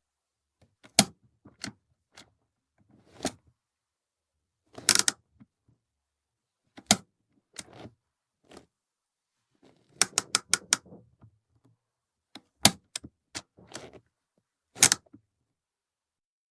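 Car handbrake lever being worked repeatedly: separate sharp ratchet clicks and clunks, with a quick run of about five clicks about ten seconds in.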